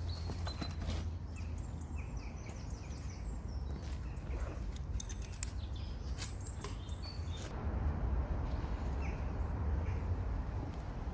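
Small birds chirping in short, repeated calls over a steady low rumble, with scattered sharp clicks.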